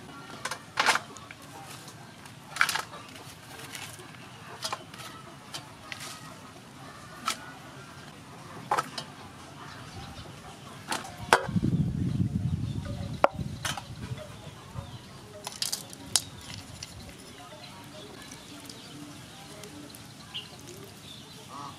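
Intermittent light taps and clinks of a spoon and ingredients going into a metal mixing bowl as a salad is assembled, with a low rumble for about two seconds near the middle.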